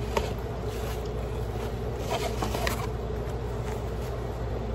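Steady low background hum of a building's air handling, with a few soft rustles and knocks from the phone and clothing being handled close to the microphone.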